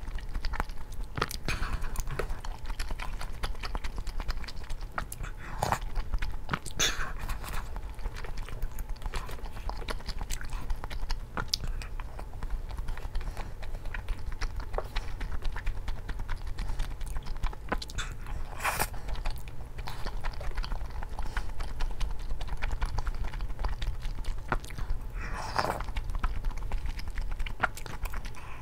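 Close-miked eating: chewing with soft wet mouth clicks, and a few louder sips of broth from a bowl.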